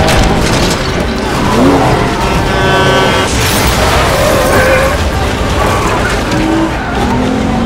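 Several action-film soundtracks playing on top of one another: car engines and skidding tyres mixed with orchestral music, with a sudden loud crash-like burst about three and a half seconds in.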